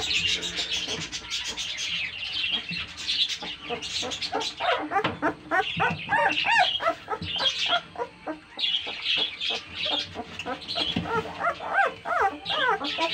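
Kanni puppies whimpering and squealing in many short, high-pitched, overlapping cries as they jostle to nurse from their mother.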